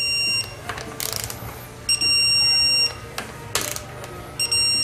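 Digital torque wrench beeping: long, steady electronic tones about a second each, repeating roughly every two and a half seconds, which signal that the set torque is reached on the valve body bolts. Short ratchet rasps from the wrench come between the beeps.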